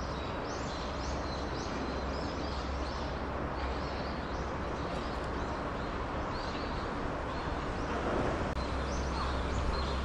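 Small birds chirping, many short high chirps at irregular intervals, over a steady low background rumble.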